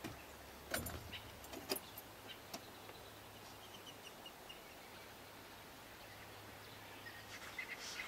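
Quiet bush ambience: a steady low hum under a few sharp clicks or knocks in the first three seconds. Faint high bird chirps come in a quick run near the middle and again near the end.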